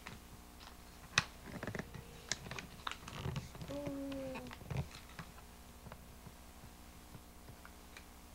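Scattered clicks and crinkles of stiff paper being handled and mouthed by a baby, with a short, slightly falling baby vocal sound about four seconds in.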